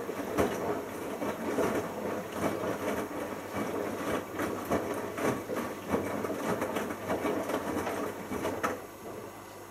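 Bosch Logixx washing machine drum turning during the first rinse, tumbling the wet load with irregular knocks and thuds. The drum stops near the end, leaving a quieter steady hum.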